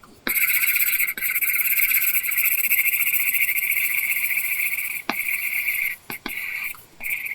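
Apple Pencil (2nd generation) scratching across a paper-textured screen protector on an iPad Pro: one long continuous stroke lasting about five seconds, then a few short strokes near the end, with light clicks of the pen tip touching down.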